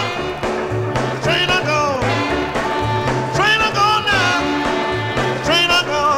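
Instrumental rhythm-and-blues record played from a vinyl 45: a wailing blues harmonica sweeps up into bent notes several times over a band with a steady, repeating bass line.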